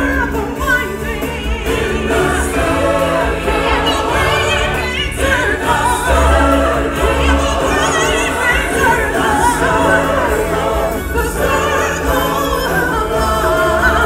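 Stage-show music: a choir of singers performing over backing music with a strong bass line, with no pause.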